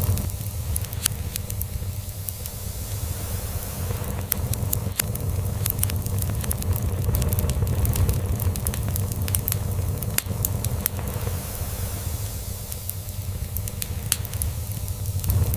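Log fire crackling, with many sharp pops and snaps scattered irregularly, over a steady low cat purr that swells and eases every few seconds.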